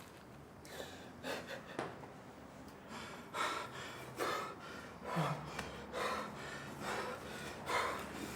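A person breathing hard in quick, gasping breaths, about one a second, with a brief voiced catch in one breath about halfway through.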